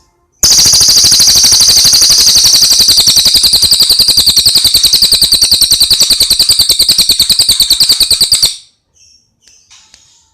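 Cililin bird singing one long, rapid, evenly pulsed high trill of about eight seconds. It is very loud and cuts off abruptly, followed by a few faint chirps.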